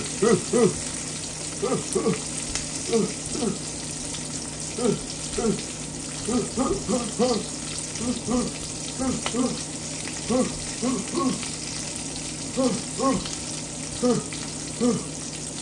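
Food sizzling on the stove, a steady frying hiss, with short pitched grunt-like sounds about once or twice a second on top, the loudest thing heard.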